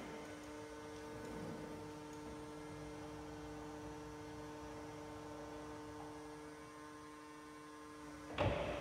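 Hydraulic pump motor of a Tecna T-20 electric forklift running with a steady two-tone hum as the mast lifts the forks. Near the end there is a short, louder noisy burst.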